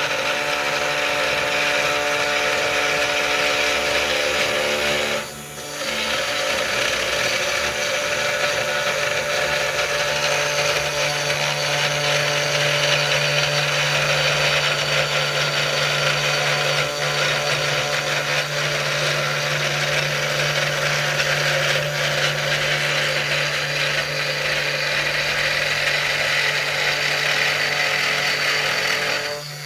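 3018 desktop CNC router running: its spindle motor and stepper motors make a steady mechanical whine with a hum. The sound dips briefly about five seconds in, and after that a low hum is more prominent.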